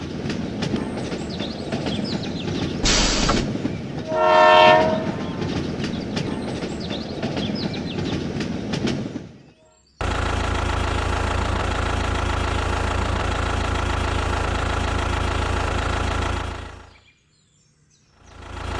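Train running, with a short hiss and then a horn blast about four seconds in. After an abrupt cut, a steady engine hum plays and fades out near the end.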